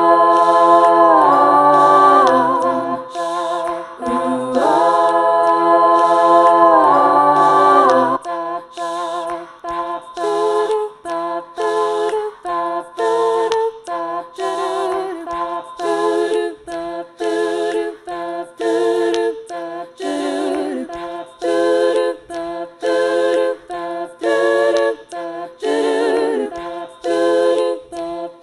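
A cappella vocal harmonies stacked up on a loop pedal: long held chords, then from about eight seconds in a short, chopped vocal pattern repeating in a steady rhythm.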